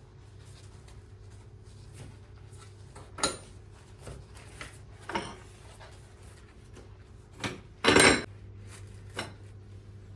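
Kitchenware knocking and clattering, five separate times, the loudest and longest about eight seconds in, over a steady low appliance hum.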